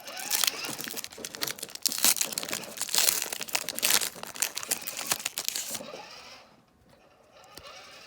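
Foil Pokémon booster pack wrapper crinkling and tearing open: a dense, sharp crackle that dies down about six seconds in.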